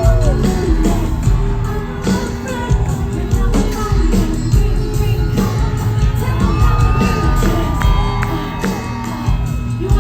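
Live pop band playing through a festival PA, with a singer's voice over the backing music.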